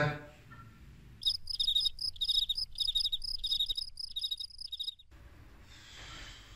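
Cricket chirping sound effect: quick high trilled chirps in short repeated groups, starting about a second in and cutting off suddenly after about four seconds. This is the comic 'crickets' cue for an awkward silence when nobody answers the teacher's question.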